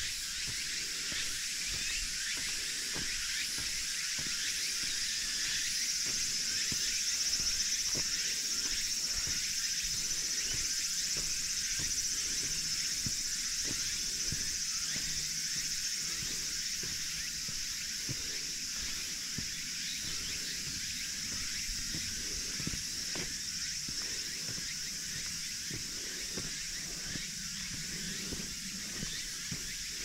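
Cicadas singing in a steady high-pitched chorus that swells a little several seconds in, over the soft regular ticks of footsteps on the road.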